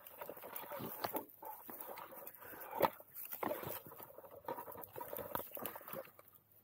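Dry sticks and leaves in a brush pile rustling and crackling as a rabbit hound pushes and digs into it and a gloved hand pulls at the branches, with many small snaps and one sharper crack about three seconds in.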